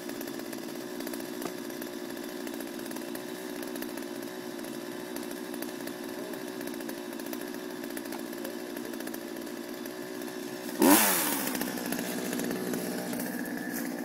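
Chainsaw running steadily, then about eleven seconds in a sudden loud burst as its pitch swings, after which it runs louder.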